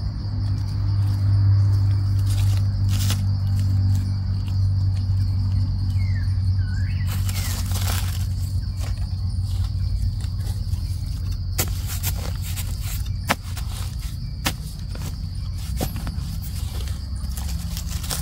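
Insects trilling steadily at one high pitch over a steady low hum, with scattered sharp clicks and crackles, more of them in the second half.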